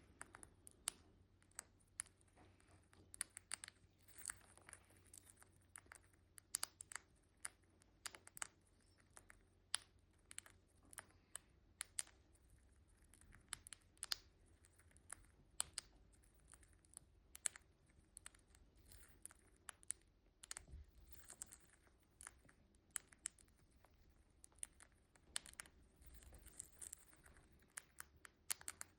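Green-cheeked conure cracking millet seeds with its beak: faint, irregular sharp clicks and crunches, sometimes several in quick succession.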